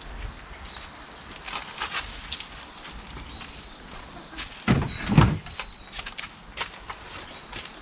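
Two loud staple-gun shots about half a second apart, a little under five seconds in, as a tarpaulin is stapled to a chicken run. Small clicks and handling noises run throughout, with birds chirping several times.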